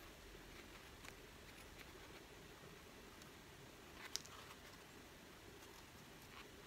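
Near silence with faint, soft handling sounds as a hamburger bun is squeezed and pulled apart by hand, including a brief crisp click just after four seconds in.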